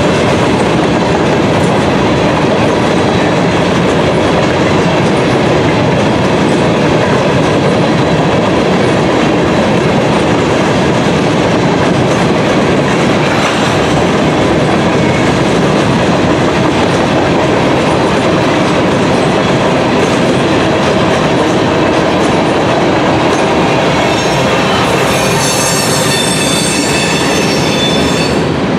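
Norfolk Southern freight train's covered hopper cars rolling past close by: a steady rumble and rattle of wheels with clickety-clack over the rail joints. Near the end a high, sustained wheel squeal comes in over the rolling.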